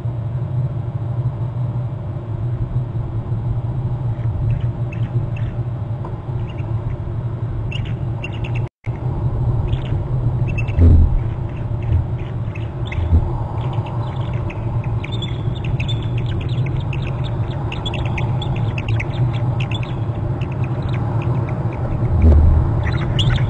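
Bald eagles giving alert calls: runs of short, high piping notes, thickest partway through, over a steady low rumble. The sound cuts out for a split second a little before nine seconds in.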